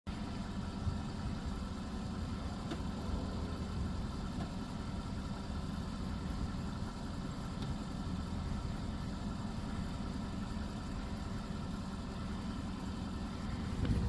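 First-generation Porsche Cayenne engine idling steadily.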